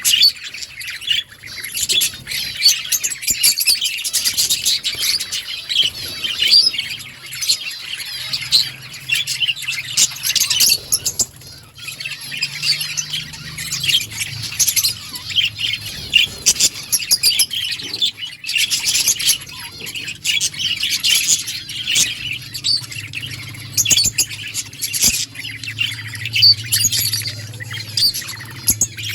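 Budgerigars (budgies) chirping and chattering nonstop, many quick overlapping calls at once, with a faint low hum underneath from about a third of the way in.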